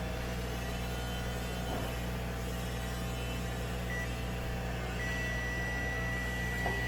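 Multimeter continuity beeper sounding one steady high tone, a short blip about four seconds in and then a held beep near the end, the sign that the removed ceramic capacitor is shorted. A steady low hum runs underneath.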